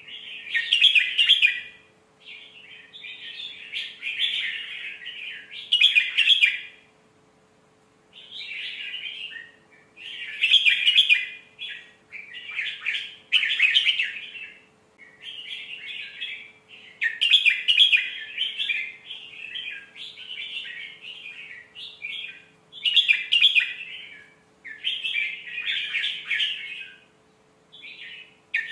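Red-whiskered bulbul singing a run of short warbled phrases, each a second or two long, with brief pauses between them, over a faint steady hum.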